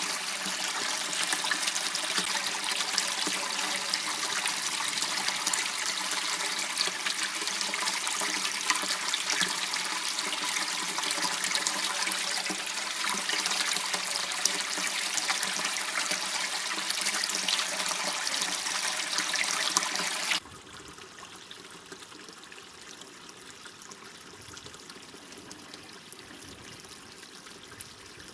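Water running and trickling in a small waterway, a steady rushing splash that drops suddenly to a much quieter trickle about twenty seconds in.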